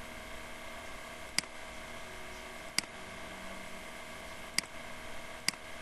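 Four sharp computer mouse clicks, one to two seconds apart, over a steady low hiss of room noise.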